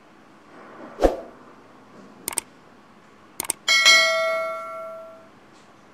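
Subscribe-button animation sound effects: a whoosh about a second in, two pairs of mouse clicks, then a notification bell that rings and fades over about a second and a half.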